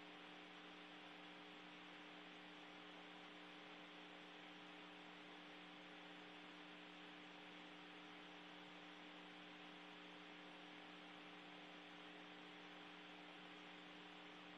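Near silence: a faint, steady hiss with a constant electrical hum.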